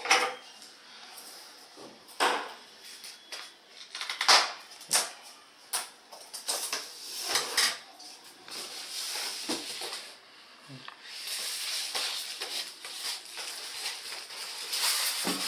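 Unpacking noise from polystyrene packing blocks and a plastic packing strap being handled and cut: scattered clicks and scrapes. From about two-thirds of the way in, a steady rustle of plastic wrapping as the speakers are pulled out of the foam.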